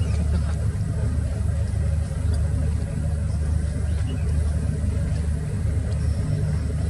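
A ship's engine running with a steady low rumble.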